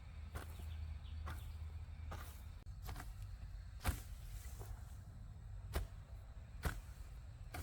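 A series of short knocks or thuds, roughly one a second, over a low steady rumble.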